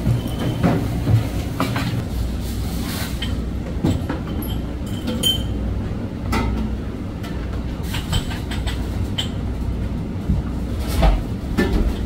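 Steady low hum and rumble of kitchen machinery, with scattered light clinks and taps from a spoon, a jar and glassware as salmon roe is spooned into glasses.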